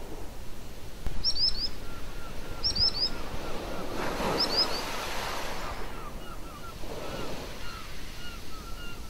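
Small sea waves washing in at high tide, swelling twice, with birds chirping: three quick bursts of three or four high, falling notes in the first half, over a run of softer, lower short notes at about three a second.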